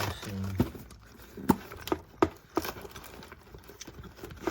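A series of hollow knocks and clunks, five or so in the first three seconds and fainter ones after, as hard containers and items are handled and set down while boxes are unpacked.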